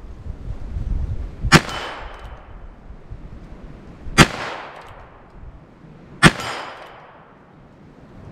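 Three shots from a Heritage Rough Rider .22 single-action revolver firing .22 Long Rifle, spaced about two to two and a half seconds apart. Each shot is a sharp crack that trails off in a short ring.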